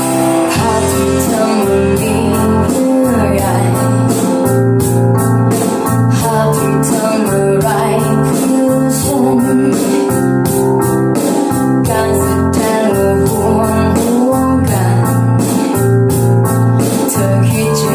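Pop ballad music with a steady, repeating bass line and a wavering melodic lead, played back loud through a class AB power amplifier and PA speakers.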